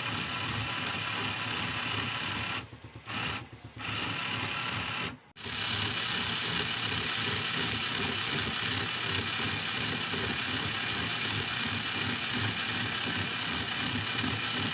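Electric motor of a satellite dish linear actuator running, driving its rod back into the tube; it runs freely after being cleaned of the dirt that had jammed it. It cuts out briefly three times in the first five or six seconds, then runs on steadily and a little louder.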